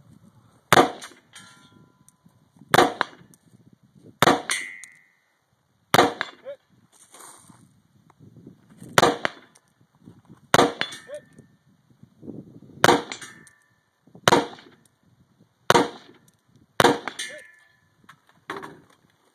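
A rifle fired about ten times at an uneven pace, the shots one to three seconds apart. Several shots are followed a moment later by the short ring of a hit steel target.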